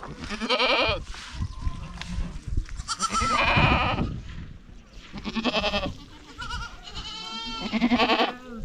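A herd of goats bleating, about four separate quavering calls from different animals, the last one longer.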